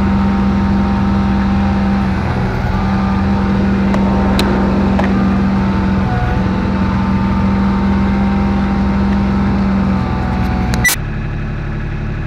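Kubota diesel engine running steadily under load, with two brief dips in engine note. Near the end a sharp click, after which the engine runs quieter.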